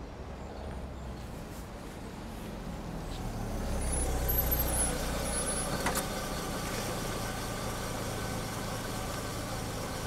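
Steady rumbling vehicle traffic noise that swells for a couple of seconds about four seconds in, with one sharp click about six seconds in.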